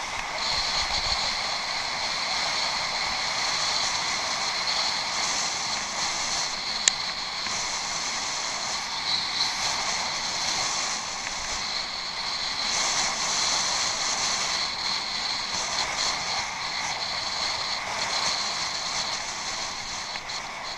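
Steady rushing noise of a bicycle being ridden off-road, as picked up by a head-mounted action camera: wind and rolling noise that swells and eases a little, with one sharp click about seven seconds in.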